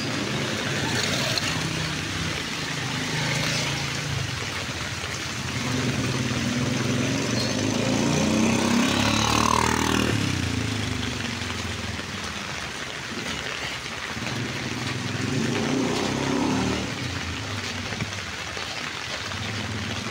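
Street traffic: vehicles driving past, one passing close about ten seconds in with its engine pitch sweeping as it goes by, and another swelling up near the end.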